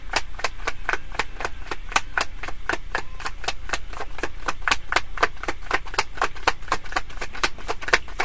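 A deck of tarot cards being shuffled by hand: a steady run of sharp card snaps, about five a second.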